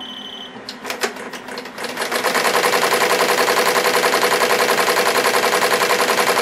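SWF multi-needle embroidery machine stitching a cap held in its cap frame. A short high beep and a few clicks come first, then about two seconds in the machine starts sewing at a fast, even rate of roughly ten stitches a second.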